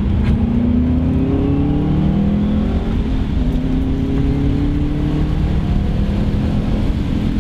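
Turbocharged Subaru flat-four engine accelerating hard: its pitch climbs, drops at a gear change about three seconds in, then climbs again.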